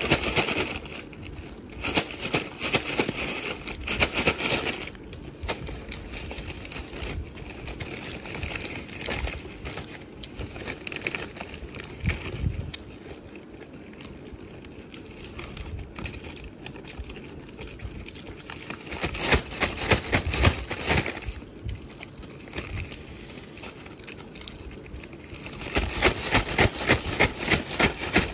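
Close-up crunching and chewing of a crispy breaded fried chicken drumstick, in several bursts of crackly bites with quieter chewing between.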